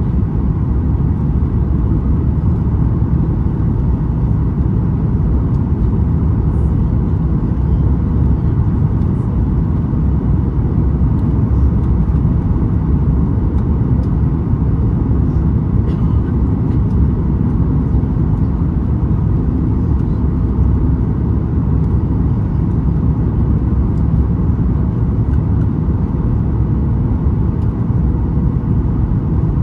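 Cabin noise of a Boeing 737 MAX 8 descending on approach, heard from a window seat over the wing. It is a steady low rumble of airflow and its CFM LEAP-1B engines, with a faint steady hum above it.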